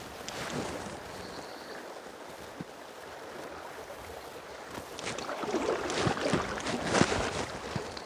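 River water flowing steadily, with a run of irregular splashing from about five seconds in, loudest just before the end.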